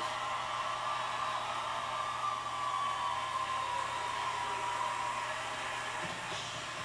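Studio audience cheering and applauding, heard through a television's speaker as a steady wash of noise.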